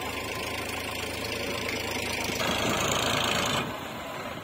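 Tractor's diesel engine running with a knocking beat, getting louder for about a second a little past halfway before dropping back.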